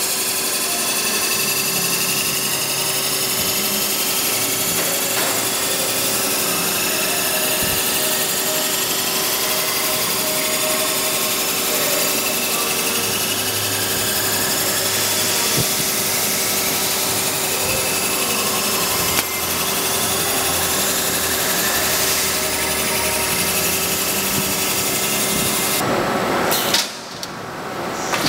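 Centerless grinder running with its automatic workpiece loading and unloading system: a steady whirring hiss over a constant hum. Near the end the noise drops suddenly, then picks up again.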